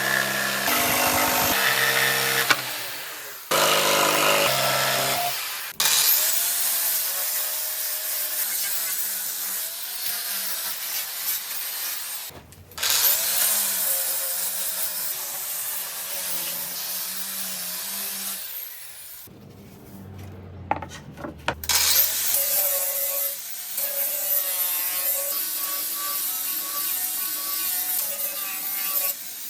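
Power tools sawing and cutting through material in a run of short clips, each ending in an abrupt cut to the next, some with a wavering whine of a blade under load.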